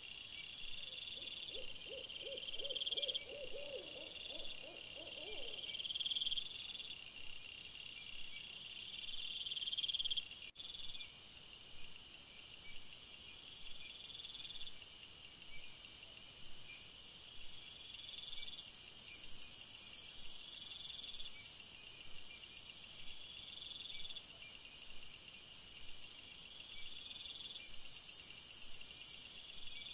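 A night chorus of crickets chirping: several pulsed trills at fixed high pitches repeat over and over, with a high steady insect hiss joining from about twelve seconds in. In the first few seconds a lower, rapidly pulsed call rises and stops.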